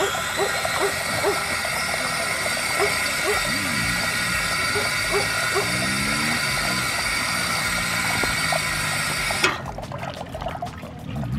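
Water running from the push tap of a dog-park drinking fountain and splashing, with huskies lapping at the stream in short repeated laps. The flow cuts off suddenly near the end as the tap is let go.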